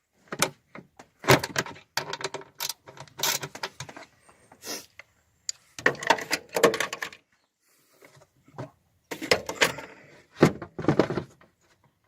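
Irregular metallic clanks, clicks and knocks from a socket wrench, extractor socket and loosened bolt being handled, in short bursts with brief pauses between.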